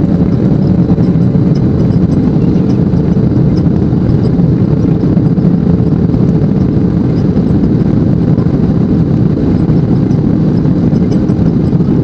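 Steady, loud jet engine noise of an L-1011 TriStar's Rolls-Royce RB211 turbofans, heard from inside the cabin as the airliner moves along the ground.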